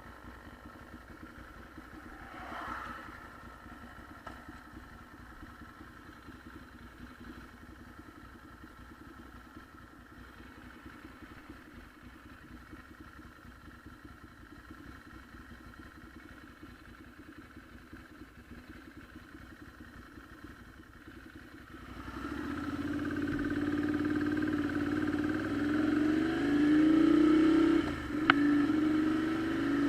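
Motorcycle engine running quietly under way. About two-thirds of the way in it gets much louder and revs up, its pitch climbing, dropping briefly, then climbing again near the end.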